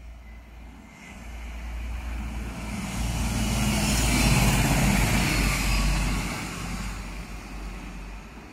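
A vehicle passing close by. Its noise swells from about a second in, peaks around four to five seconds in, then fades away.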